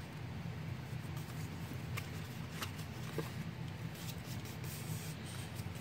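Patterned cardstock being folded and creased along score lines by hand: faint paper rustling with a few small crackles, over a steady low hum.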